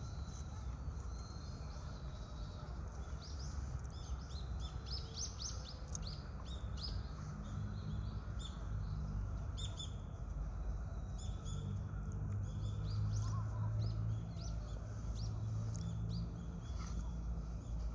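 Birds chirping: many short, high calls scattered irregularly, over a steady low rumble of distant city noise.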